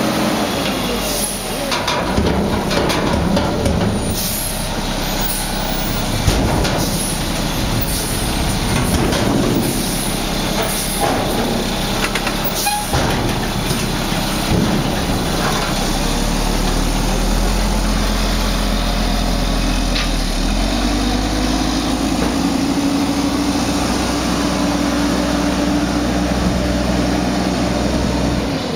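Heil front-load garbage truck on a Mack chassis working a dumpster: the diesel engine runs under hydraulic load while the lift arms come down, with repeated metal clanks and bangs in the first half. In the second half the engine settles into a steady low drone that rises in pitch about two-thirds of the way in as the truck pulls away.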